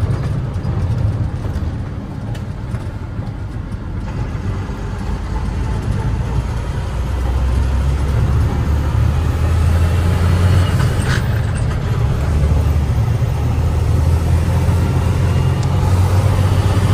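International truck's diesel engine running, heard from inside the cab with tyre noise from the gravel road. Its low rumble grows louder about halfway through.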